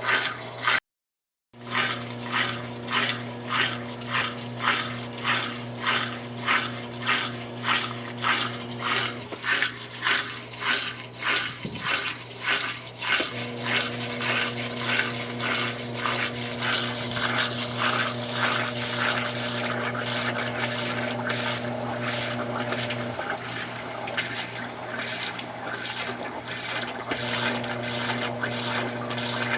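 Consul Maré Super top-loading washing machine running, a steady electric hum under rhythmic swishes of water, a little under two a second. After about fourteen seconds the swishes merge into a continuous rush of water. The sound cuts out for a moment about a second in.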